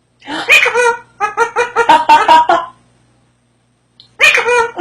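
Parrot chattering in a high, voice-like babble in two bouts, the second starting about four seconds in.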